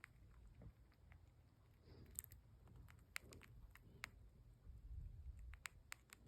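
Faint, scattered small clicks from a hamster chewing and grinding its teeth, a handful of sharp ticks a second or so apart over a low rumble.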